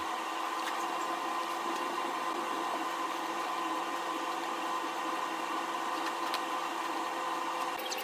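A steady mechanical whir with a few constant hum tones and no change in pitch.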